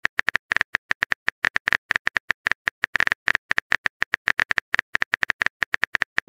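Simulated phone-keyboard typing clicks: a quick, slightly uneven run of short taps, about six a second, one per letter as a text message is typed out.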